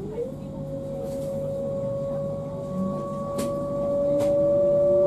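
DB Class 425 electric multiple unit's traction drive singing as the train accelerates, heard from inside the passenger cabin: one tone glides up and then holds steady, and about three seconds in a second, lower tone starts rising slowly beneath it, growing louder.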